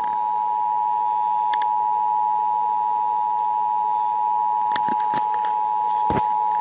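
Emergency Alert System attention signal: the two-tone alarm of two steady tones sounded together just under 1 kHz, held unbroken at a constant level, marking the start of a broadcast EAS test. A few faint clicks and a low thump sound over it about five to six seconds in.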